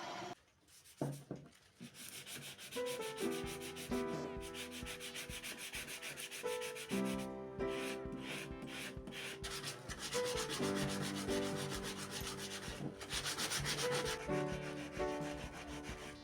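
Abrasive rubbing on the metal of old blacksmith's tongs during rust removal, fast scratchy back-and-forth strokes, with steady pitched notes stepping beneath them.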